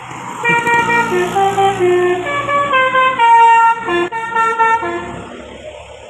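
A bus's telolet basuri musical horn playing a quick tune of short notes, stepping up and down in pitch, for about four and a half seconds.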